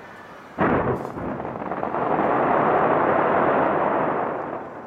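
Fireworks going off: a sudden loud boom about half a second in, then a dense, sustained run of bursts that fades near the end.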